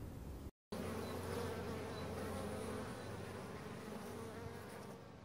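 Bees buzzing in a steady, droning hum that starts after a brief dropout about half a second in and fades out near the end.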